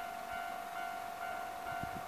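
Japanese railway level-crossing alarm ringing with a steady, repeating electronic ding while the barriers are down, the sign that a train is approaching.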